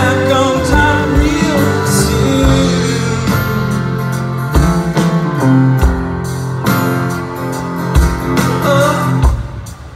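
Live band music with a string section and a male lead voice singing into a microphone. The music drops in level briefly near the end.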